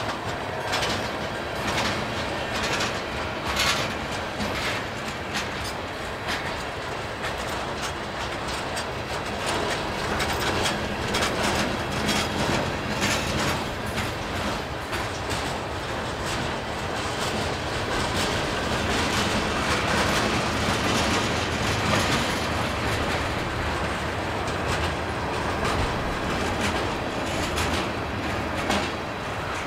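Union Pacific freight train rolling slowly past at about 5 mph, its car wheels clicking and clacking over the rails with a steady rumble and many irregular knocks.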